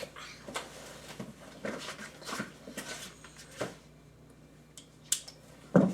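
Handling of tool packaging: scattered knocks and rustles as a box is opened and the tool is taken out, then a sharp click and a loud knock near the end.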